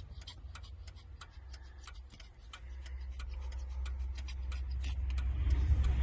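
Rapid, even ticking of a pickup truck's hazard-light flasher heard inside the cab while it sits on the shoulder, with a low rumble growing louder over the second half.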